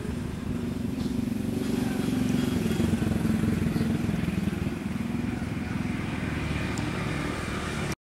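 An engine running steadily, its drone swelling about two seconds in and then easing.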